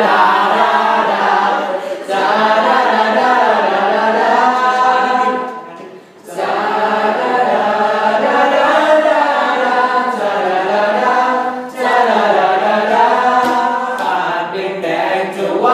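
Student choir singing a part-song in harmony, with short breaks between phrases, the longest about six seconds in.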